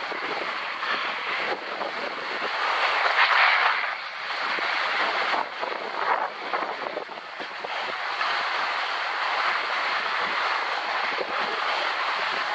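Skis sliding and scraping over snow during a descent: a continuous hiss that swells and dips with the turns, loudest about three seconds in.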